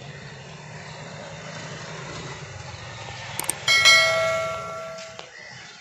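A subscribe-button sound effect: a quick double click, then a bell ding that rings and fades over about a second, over a steady low background rumble.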